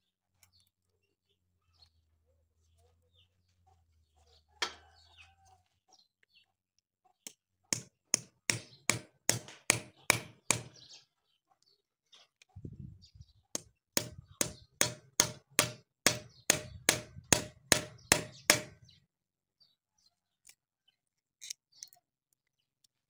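A hatchet knocking a knife blade into a wooden block screwed onto a cow's hoof, to split the block away. The strikes come in two runs of quick sharp knocks, about three a second, with a pause between them, and one lone knock comes a little earlier.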